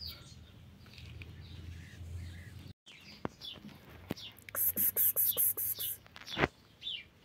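Small birds chirping faintly. About two-thirds through comes a quick run of scratchy rustling, then a single sharp knock near the end.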